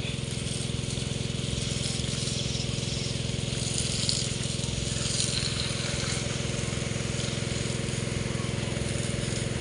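A water pump running steadily, a droning, rattling motor drawing pond water for the irrigation lines, with the hiss of sprinkler spray over it.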